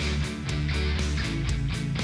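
Background rock music led by guitar, with a steady beat of about four strokes a second.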